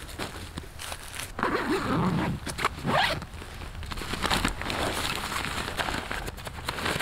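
Zipper on a Coleman Sundome tent's fabric carry bag being pulled open in several quick rasping strokes.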